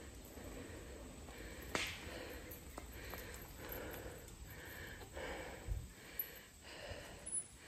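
Breathing close to the microphone, soft breaths about once a second, with a sharp click about two seconds in.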